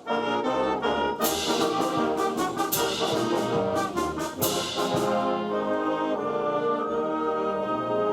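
Band with a strong brass section playing a musical interlude. It comes in suddenly with sharp percussion strikes over the first five seconds, then settles into held brass chords.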